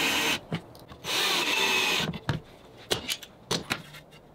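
Cordless drill driving pocket screws into a wooden door frame: a short burst of running, then a second burst about a second long. Several sharp knocks and clicks follow as the frame and tools are handled on the bench.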